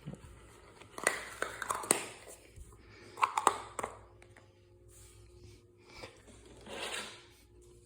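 Handling noise: small slime containers being set down and moved on a surface, a handful of light clicks and knocks with soft rustling between.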